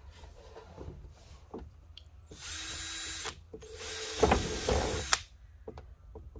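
Electric drill boring holes through a plastic pipe: two short runs of about a second each, starting about two and a half seconds in and again about four seconds in, the second louder. These are the intake holes being drilled in a plastic well pipe that will carry a filter.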